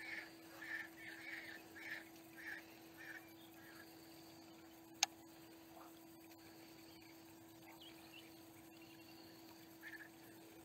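Faint repeated animal calls, about two a second, that thin out after the first few seconds, over a steady low hum, with a single sharp click about halfway.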